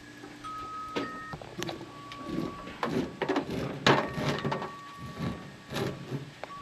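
Kitchen clatter: a string of irregular knocks and clinks from cookware and utensils being handled, the loudest about four seconds in, over a faint steady background hum.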